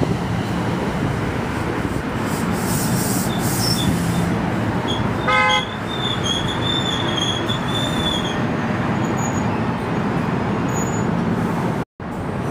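A passing train running steadily with loud rail noise, a short horn toot about five seconds in, and a thin high wheel squeal lasting a few seconds after it. The sound cuts out completely for a moment near the end.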